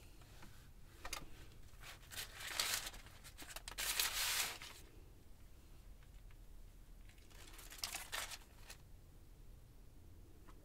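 Paper rustling and crinkling as a rolled-up pie crust is unrolled and its pastry sheet peeled off the paper, in several short rustles with the loudest about four seconds in.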